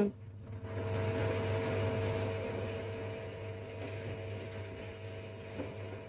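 Samsung ecobubble front-loading washing machine on its wool cycle, the drum spinning a wet blanket: a steady motor hum and whine with a whooshing rush, easing off slowly after the first couple of seconds.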